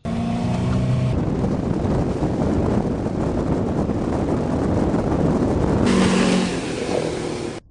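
A motorboat running under way, with heavy wind noise on the microphone. A steady engine tone shows through at the start and again near the end, and the sound changes abruptly about a second in and again about six seconds in.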